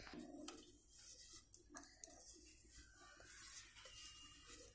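Near silence, with a few faint light taps and soft scrapes of utensils against the aluminium pressure-cooker pot as the mashed dal is handled.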